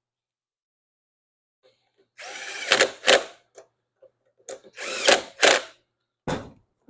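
Handheld power drill/driver run in three short bursts of trigger pulls, its motor spinning up and winding down each time.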